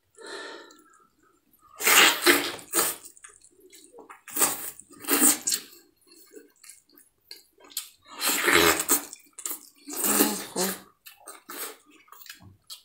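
Cooked tail meat being torn apart by hand, giving wet ripping and squelching sounds in a string of short bursts with pauses between them.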